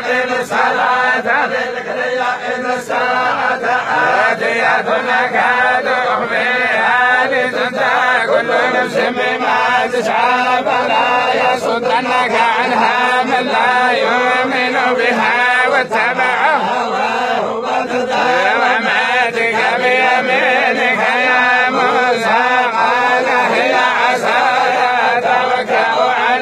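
A group of men reciting the Quran together in unison, many voices chanting continuously without a break.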